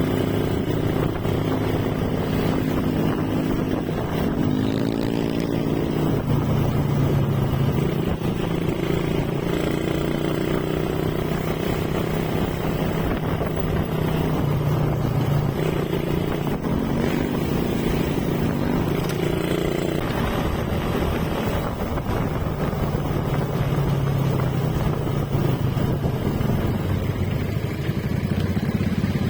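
Motorcycle engine running under way, its pitch rising and falling with the throttle, over steady wind and road noise.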